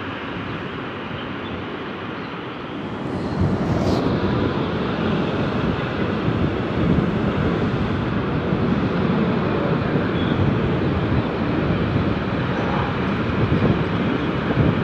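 Wind buffeting the camera microphone, a steady rumbling rush that grows louder about three seconds in, with a brief click just after.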